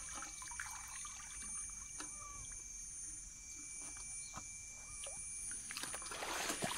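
Shallow muddy water splashing and sloshing as a PVC-pipe eel trap is worked in it, with scattered small knocks and a louder rush of splashing about six seconds in. Under it runs a steady high-pitched drone of insects.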